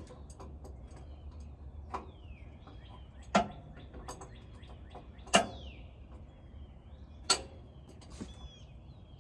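Sharp knocks from hands-on work on the tractor: three loud ones about two seconds apart and a few fainter ones, with birds chirping in the background.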